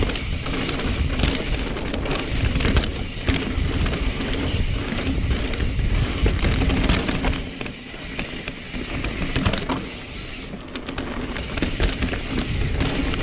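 Norco Sight full-suspension mountain bike riding a dirt trail: tyres on loose dirt, chain and frame rattling over bumps, with a ratcheting freehub clicking, under a heavy rumble of wind on the microphone.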